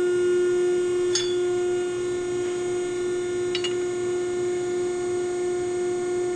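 A small electric motor running at a steady pitch, a constant whine, with two short clicks, about a second in and about three and a half seconds in.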